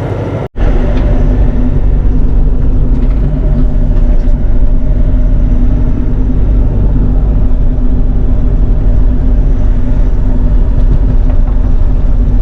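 Bobcat E42 mini excavator's diesel engine running steadily at working speed with a deep, constant drone. A split-second gap about half a second in, after which it is louder.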